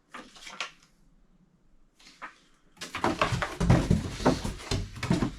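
Plastic packaging rustling and crinkling as a bagged pet bed is handled: a brief rustle at the start, then a longer, louder stretch of crackling and rubbing from about three seconds in.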